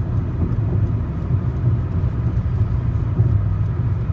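A car being driven on a highway, with steady low engine and road rumble.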